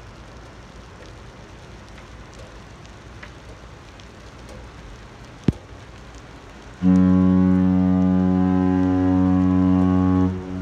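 A large container ship's horn sounds one long, deep, steady blast of about three and a half seconds, starting a little under seven seconds in and echoing briefly as it stops. Before it, a steady hiss of rain and one sharp tap.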